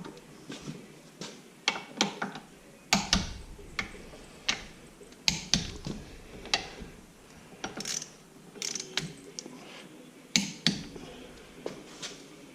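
A string of irregular sharp metallic clicks and clanks from hand tools working on a Ford 9-inch differential third member while the carrier bearing adjuster nuts are set for backlash.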